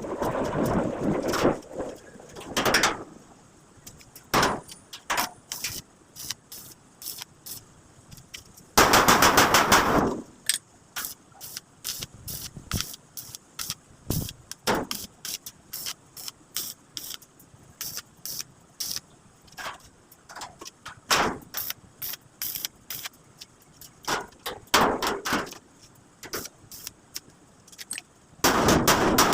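Metalworking in a workshop: irregular sharp clicks and knocks, with two loud crackling, hissing bursts about a second long, one about nine seconds in and one at the end.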